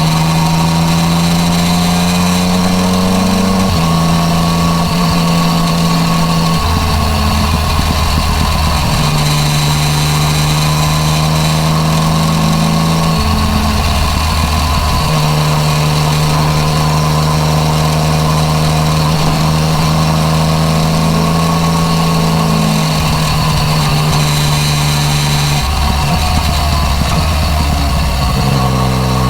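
Yamaha MT-09 Tracer inline-three running through an Akrapovic exhaust while riding. The engine note jumps up and down in pitch in abrupt steps every few seconds, as the bike changes gear and throttle.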